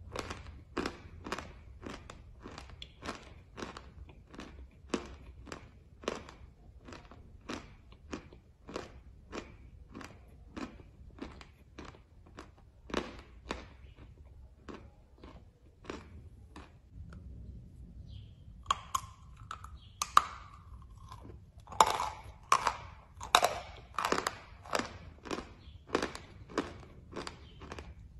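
Close-up chewing of a mouthful of chalk, steady crisp crunches about two to three a second. After a short lull about two-thirds of the way in, louder and sharper crunches follow as a fresh piece of chalk tile is bitten and chewed.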